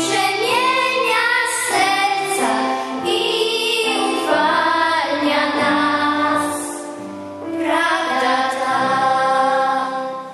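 A small group of children singing a religious hymn in Polish together, several young voices in close harmony. The singing briefly dips in loudness about two-thirds of the way through, then returns and fades out right at the end.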